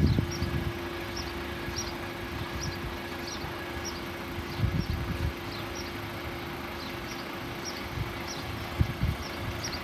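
Level crossing audible warning alarms sounding, warning of an approaching train: a high chirping pattern repeats about twice a second over a steady tone. A few low thumps come about halfway through and again near the end.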